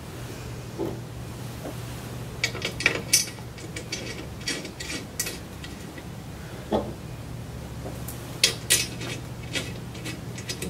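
Light metallic clicks and clinks of bolts and washers being handled and threaded by hand into a fitness machine's metal front post, coming in scattered clusters over a steady low hum.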